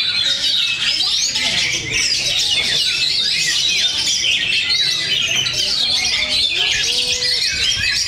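Many caged oriental magpie-robins singing at once, a dense, unbroken chorus of overlapping rising and falling whistles and warbles.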